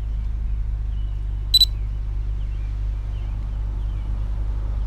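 Steady low rumble, with one short, high-pitched double beep from the drone control app about a second and a half in.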